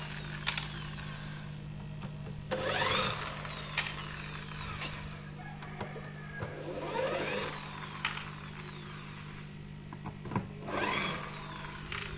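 Electric drill backing screws out of a wooden speaker cabinet to open it: three short runs of the motor, each rising in pitch as it spins up, with a few sharp clicks between them. A steady low hum sits underneath.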